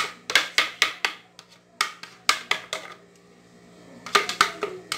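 Sharp, irregular knocks and clicks of a wooden utensil against a metal baking tray and batter container, several a second, easing off for about a second near the middle.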